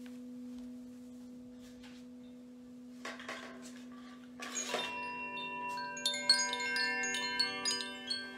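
A crystal singing bowl rings a steady, pure low tone. After a couple of brief rustles, from about five seconds in, a cascade of high chime tones rings out over it.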